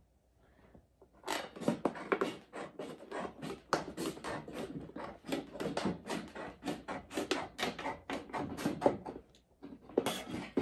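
Galvanized sheet metal being worked by hand, a marked piece bent up and broken away from the sheet: a fast run of irregular crinkling clicks and scrapes, starting about a second in, with a short pause near the end.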